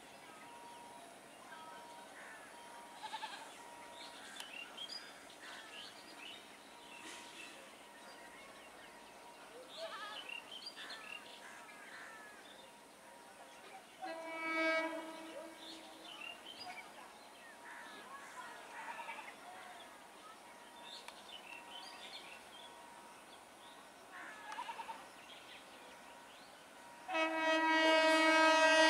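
An Indian Railways EMU local train sounding its horn as it approaches: a short blast of about two seconds halfway through, then a much louder, sustained blast near the end. Birds chirp faintly in between.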